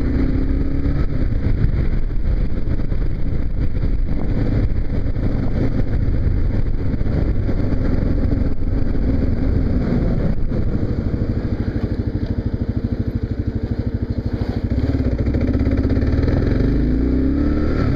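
Kawasaki KLR650's single-cylinder engine under way: it rises in pitch as it pulls away at the start, runs steadily, slows to an even pulsing beat a little past halfway, then picks up and rises again near the end.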